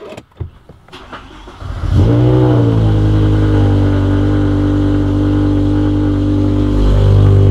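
BMW M5 V10 started with its push button: a few clicks and a brief crank, then the engine fires about two seconds in with a quick rev flare. It settles into a steady idle and grows a little louder near the end.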